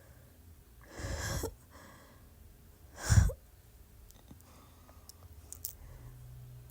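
Two short croaking noises from the throat of a person with R-CPD (retrograde cricopharyngeal dysfunction, the inability to burp): a longer one about a second in and a sharper, louder one about three seconds in.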